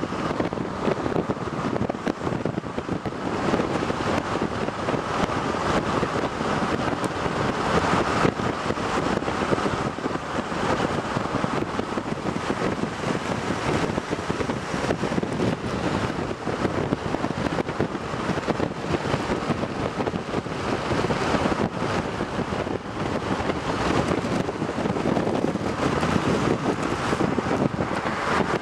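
Steady rush of wind and road noise from a car driving along at speed, with wind buffeting the microphone.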